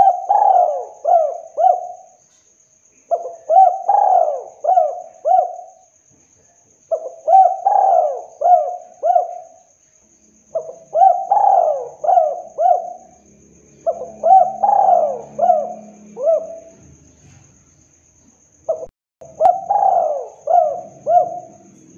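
Spotted dove cooing its 'kuk 2' song: six phrases, each a quick run of four or five coos, repeated every three to four seconds with short pauses between.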